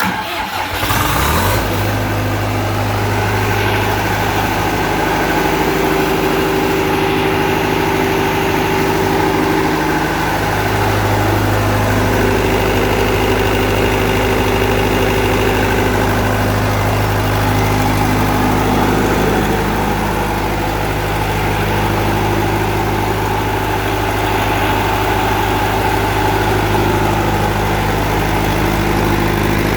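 Tsuzumi TD30 30 kVA open diesel generator's four-cylinder water-cooled engine starting and rising to speed within the first second or two, then running steadily at its governed speed.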